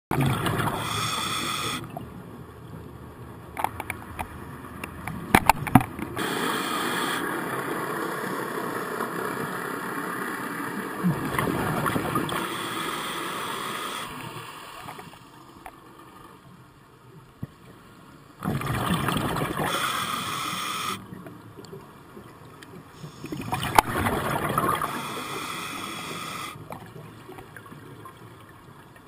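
Scuba regulator breathing heard underwater: hissing inhalations alternating with rumbling, bubbling exhalations, several breaths in all. A few sharp clicks about four to six seconds in and again near the middle of the later breaths.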